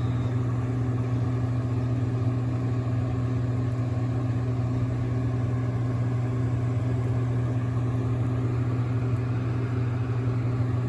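A steady low mechanical hum, like a motor running at a constant speed, with no change throughout.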